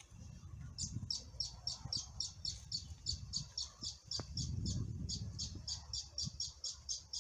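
A bird calling a rapid, even series of short high notes, about four a second, starting about a second in, over a low rumbling noise.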